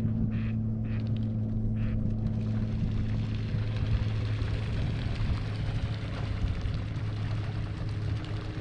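A steady low engine drone, unchanging in pitch, under a rushing hiss that thickens in the middle.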